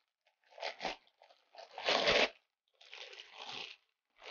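Plastic liner bag of reef salt crinkling and crunching in several short bursts as it is unfastened and opened. The loudest crunch comes about two seconds in.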